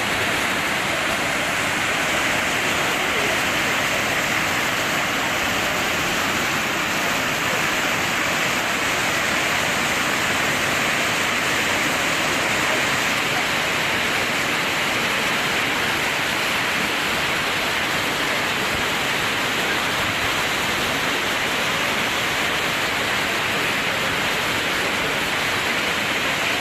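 Ouzoud waterfalls: a steady, unbroken rush of falling water.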